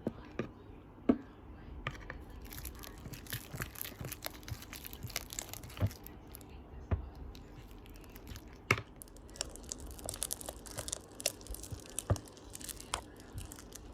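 Glue slime being mixed with its activator: irregular sticky crackling and small clicks, thicker from about two seconds in, with a few louder knocks.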